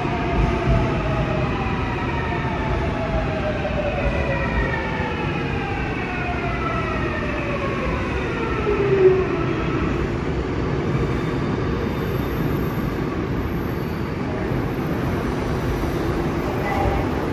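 Seoul Subway Line 7 electric train braking into a station. Its motor whine falls steadily in pitch as it slows, and there is a short louder sound about nine seconds in as it comes to a stop, followed by a steady rumble while it stands at the platform.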